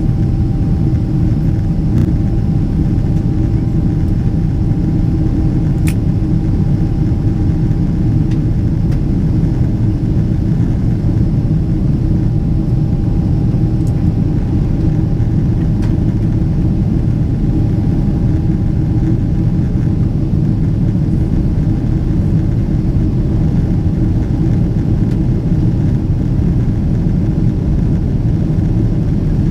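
Boeing 777-300ER cabin noise heard from a passenger seat: a steady low rumble from the GE90 engines and airframe, with a faint steady whine above it.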